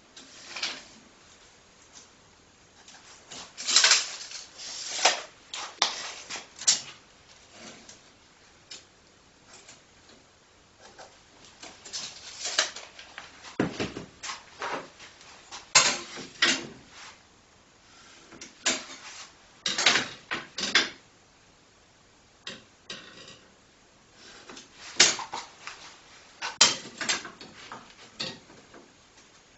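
Short, irregular scrapes, scratches and clinks of hand tools working on a flat steel bar as it is measured and marked out on a workbench. They come in clusters of a few strokes, with quiet gaps between.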